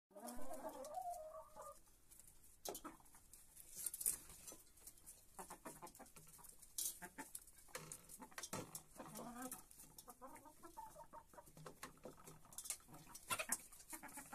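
Chickens clucking as they feed, with a run of calls near the start and another about eight seconds in. Scattered sharp taps come from beaks pecking at food in an enamelled metal basin.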